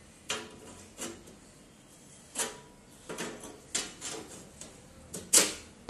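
Steel parts of a boltless rivet rack knocking and clicking as they are fitted together: about nine sharp taps at irregular intervals, the loudest near the end.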